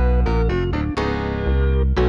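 Background music on keyboard instruments: a melody of notes over a held bass line, with a new chord struck about halfway through.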